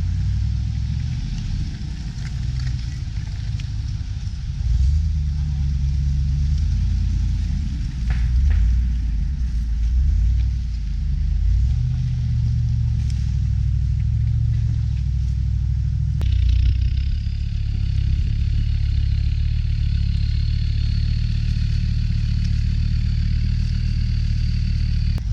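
A Land Rover's engine working off-road, its revs rising and falling. About two-thirds of the way in, a steady high whine joins it.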